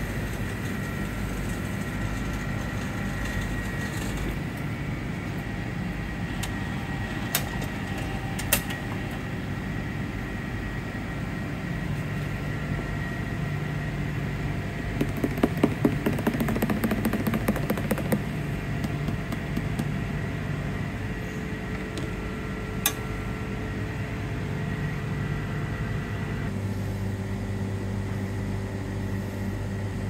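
A metal spoon stirring coffee in a paper cup, clinking rapidly for about three seconds midway, over a steady mechanical hum with a faint high whine. A few single sharp clicks are heard, and the hum changes a few seconds before the end.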